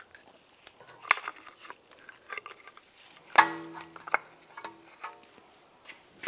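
Brake pads being pried and slid out of a caliper bracket with a metal pry tool: scattered metal scrapes and clicks, with one sharp clink about three and a half seconds in that rings on for about a second.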